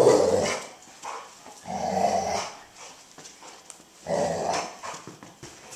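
Dog growling in play: three rough growls about two seconds apart, the first the loudest.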